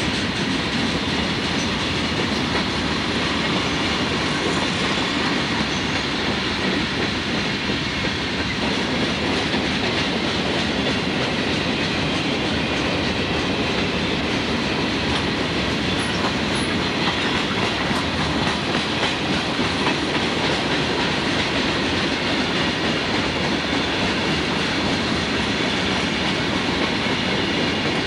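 Freight train of open-top coal hopper cars rolling steadily past at close range: a continuous noise of steel wheels running on the rails.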